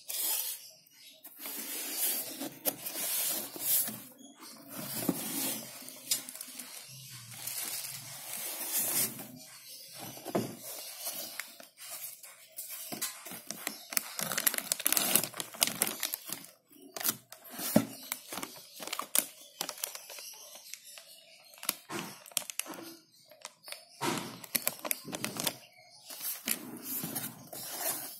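Plastic and paper packaging crinkling and tearing, with irregular clicks and knocks of small parts being handled during an unboxing.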